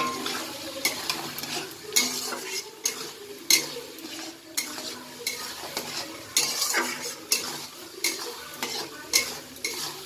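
Metal spatula scraping and clinking against a steel kadai while egg curry masala sizzles in the pan, with sharp scrapes roughly once or twice a second. The masala is being fried down (kosha) around the boiled eggs.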